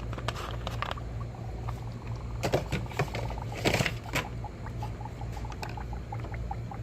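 Coolant gurgling in a 1998 Chevy Venture's cooling system as the freshly poured water and head-gasket sealer settle in with the engine off, in a run of small quick bubbling pops. A few sharper knocks about two and a half and nearly four seconds in.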